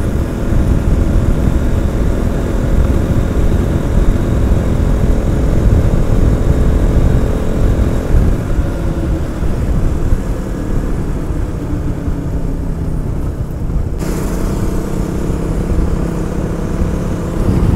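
Motorcycle engine running at road speed under heavy wind rumble on the rider's microphone. The engine note drops a little about halfway through, and the sound changes abruptly about three-quarters of the way in.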